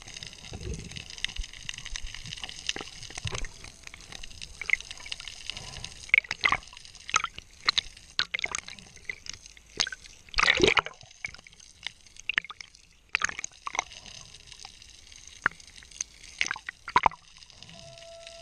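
Underwater sound picked up by a submerged camera: a steady hiss full of scattered sharp clicks and pops, with a louder watery rush about ten seconds in.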